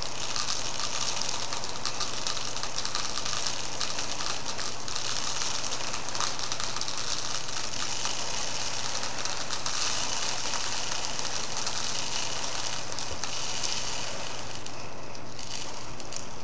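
Magnets running down a plastic tube past plastic resistor plates, a continuous fine rattling, crackling hiss. It thins out about 15 seconds in as the flow ends.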